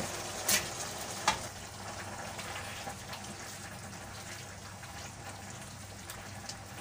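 Raw chicken pieces dropping into a kadai of simmering onion-tomato masala, with two sharp knocks in the first second and a half, then a steady sizzle of the masala cooking as it is stirred with a silicone spatula.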